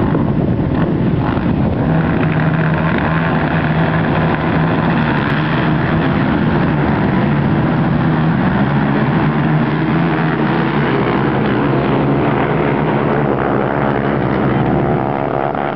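A pack of racing quad bikes (ATVs) with many engines running and revving together as they leave the start line and accelerate away. The engine sound eases slightly near the end.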